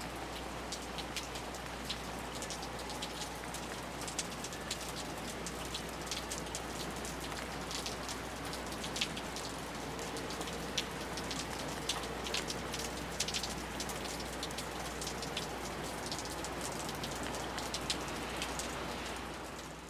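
Steady rain falling, with individual drops ticking sharply on a hard surface over an even hiss. It fades out at the very end.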